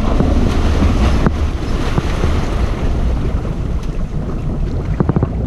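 Lake water churning and splashing around a boat trailer as a pontoon boat is launched off it, over a steady low rumble, with heavy wind buffeting on the microphone and a few knocks.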